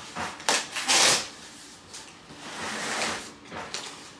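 Cardboard flaps of a large flat shipping box being pulled back and shoved aside, giving a few short rustling, scraping bursts, the loudest about a second in.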